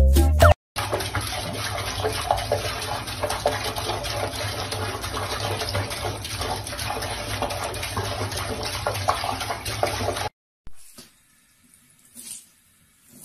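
Water running steadily from a tap and splashing into a basin, cutting off abruptly about ten seconds in; a few faint knocks follow.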